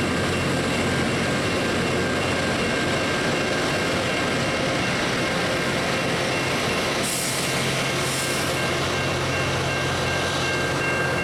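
Loram rail grinder working along the track: a steady grinding noise over a low hum, with a few steady high whines. Two short bursts of hiss come about seven and eight seconds in.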